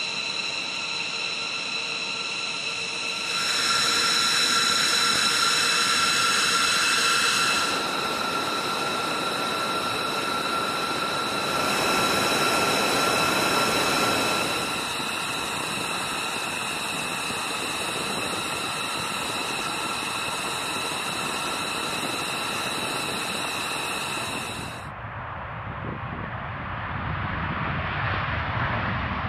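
B-2 Spirit stealth bomber's General Electric F118 turbofan engines running with a steady high whine of several tones over a hiss, the level shifting a few times. Near the end the whine drops away, leaving a deeper jet rumble that grows louder.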